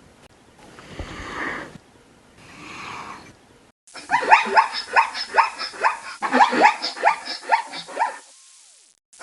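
An animal calling: two hoarse, breathy exhalations, then, about four seconds in, a rapid run of short barking yelps, several a second, that lasts about four seconds.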